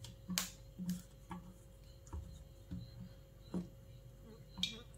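Faint, irregular wet clicks and taps, about seven of them, as a marinated chicken drumstick is dipped and turned by hand in liquid batter in a steel bowl.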